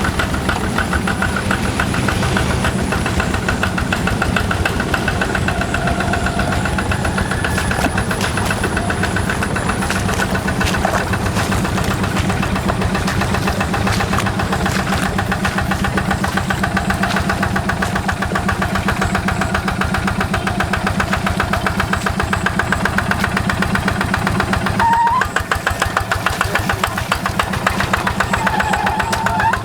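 Single-cylinder Yanmar diesel engine of a Quick G1000 hand tractor running steadily with a fast, even knocking beat, working a paddy field. Near the end the sound briefly drops and then carries on.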